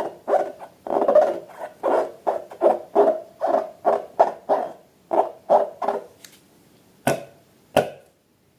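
Slime being squeezed by hand in a run of rhythmic squelches, about two to three a second, which fade out; then two sharp clicks and the sound stops.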